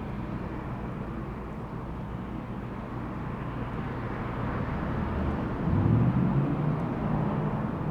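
Steady low rumble of road traffic, with a vehicle engine swelling louder and rising in pitch about six seconds in.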